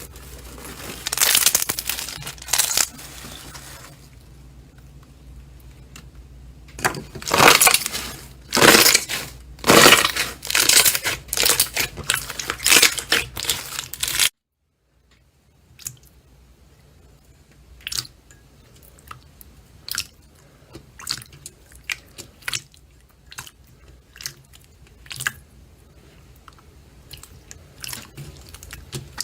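Slime being squeezed and pressed by hands, with loud squelching, crackly pushes through the first half. After a brief cut, a run of small sharp pops and crackles follows.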